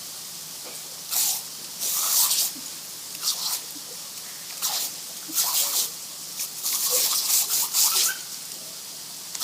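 Water from a garden sprinkler spraying and splattering in irregular bursts, about a second apart, over a steady hiss.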